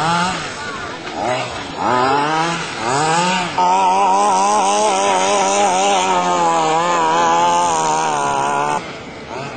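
Small two-stroke gas engine of a 1:5 scale 23cc RC off-road buggy, revved up and down in a few short bursts, then held at high revs for about five seconds before dropping back near the end.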